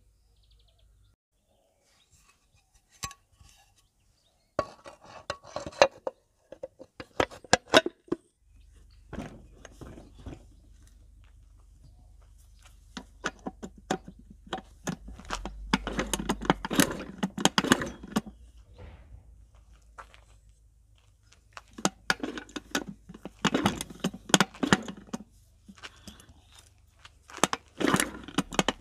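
Metal scooter-engine parts and hand tools clinking, knocking and clattering in short bursts as the aluminium variator cover is fitted onto a Honda Tact AB07 engine.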